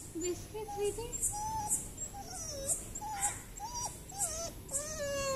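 Abandoned stray dog whining and whimpering in a run of short, wavering high cries that slide up and down in pitch, crying at being left behind. A faint high chirping repeats about twice a second in the background.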